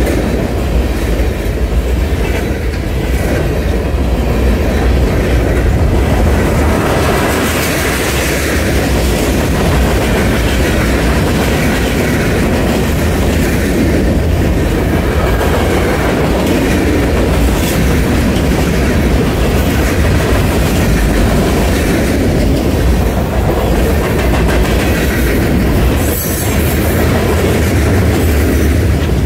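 Freight cars of a passing manifest train (tank cars, gondolas, a flatcar) rolling by at close range: a steady, loud rumble of steel wheels on rail with the clickety-clack of wheels over rail joints.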